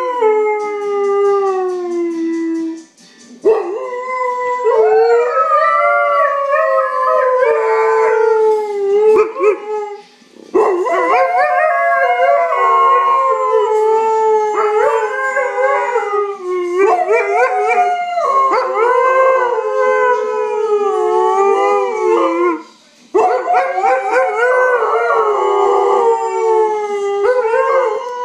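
Husky howling close up: long, wavering howls that slide down in pitch, with three short breaks for breath.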